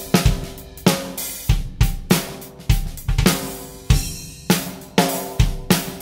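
Heart pine and maple 7x14 snare drum played in a steady drum-kit groove. Sharp, ringing snare hits come at a regular pace, with bass drum thumps under some of them.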